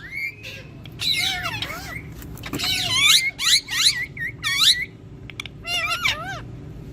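Pet green parrots chattering and squawking: a rapid run of short calls that sweep up and down in pitch, coming in clusters with brief pauses.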